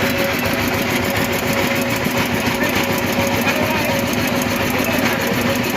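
An engine running steadily with an even hum, amid background chatter.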